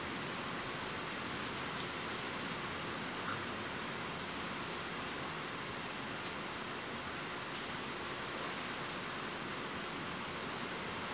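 Steady rain falling, an even hiss with a few faint, scattered drop ticks.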